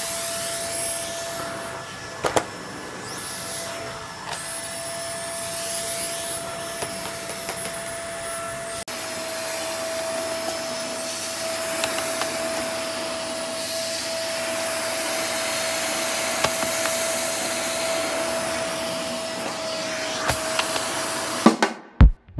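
Vacuum cleaner motor running steadily with a constant whine, with a few sharp knocks, the clearest about two seconds in. The sound cuts off abruptly near the end.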